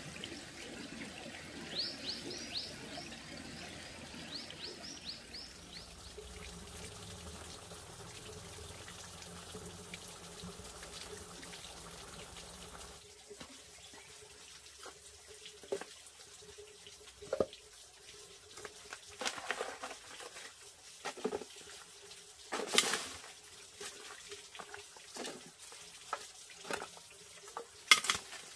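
Running water with a run of short high chirps, then about halfway through an abrupt change to quieter surroundings with scattered sharp knocks and taps.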